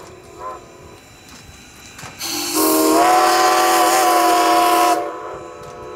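Steam locomotive whistle on 2-10-0 decapod #90, sounding a brief toot and then a long blast of several steady tones together. The long blast starts a touch low and rises to pitch as the valve opens fully.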